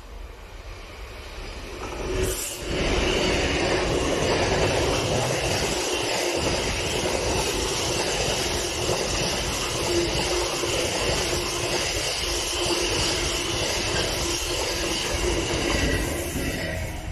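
A pair of Class 66 diesel freight locomotives, EMD two-stroke V12s, approaching and passing close about two seconds in. A long rake of freight wagons follows, rolling by with a steady rumble of wheels on rail and a constant tone through it. The sound drops away about a second before the end.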